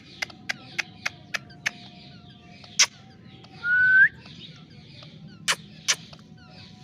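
Ringneck parakeets calling: a quick series of short, sharp chirps about three a second, then a single sharp call, a loud rising whistle about four seconds in, and two more sharp calls near the end, over faint chirping in the background.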